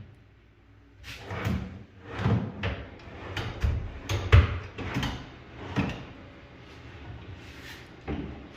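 Irregular wooden knocks and sliding scrapes of kitchen cabinet parts being handled, such as drawers or doors being moved. The knocks are busiest from about a second in until about six seconds in, then the sound drops to a quieter stretch.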